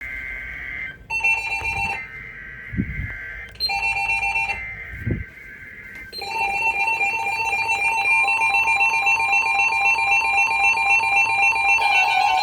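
Emergency Alert System SAME header: three short screeching data bursts, each about a second long, with a rapidly pulsing two-tone alert sounding in the gaps. From about six seconds in, the alert tone runs on continuously as the attention signal ahead of a National Weather Service Severe Thunderstorm Watch.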